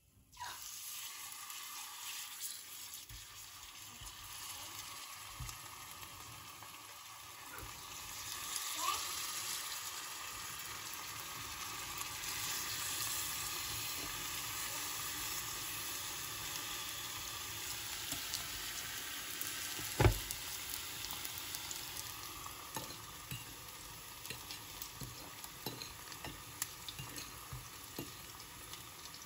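Brown-sugar-coated bananas sizzling as they fry in oil in a small pan, turned now and then with a fork. The sizzle swells about eight seconds in and eases off after twenty seconds, with light ticks throughout and one sharp knock about twenty seconds in.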